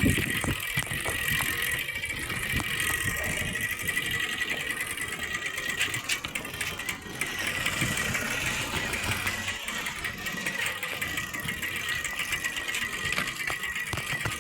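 Plastic pieces fixed to a bicycle so that they flap against the turning wheel's spokes, making a rapid, continuous clicking rattle like a small motor engine.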